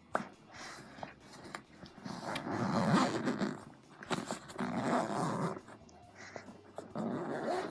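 Backpack zipper being pulled along a pocket in three long strokes of about a second each, with a short click between the first and second.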